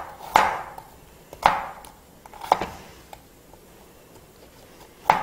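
Kitchen knife mincing garlic on a cutting board: single sharp knocks about a second apart, then a pause of about two seconds before a last knock near the end.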